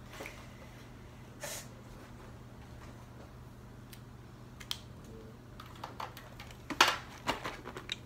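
Paper wrapper crinkling and rustling in a child's hands: a few soft rustles, then a burst of crackles about seven seconds in, over a faint steady hum.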